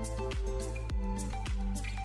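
Background music with a steady beat, about two beats a second, over held bass notes.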